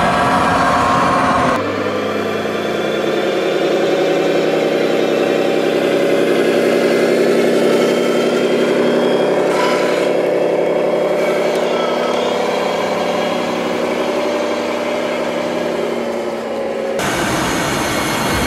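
Scale RC truck's diesel engine sound, running steadily at idle. The sound changes abruptly about one and a half seconds in and again near the end.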